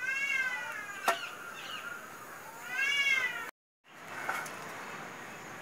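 A cat meowing twice, each meow rising and then falling in pitch, with a single sharp tap about a second in. The sound cuts out briefly after the second meow.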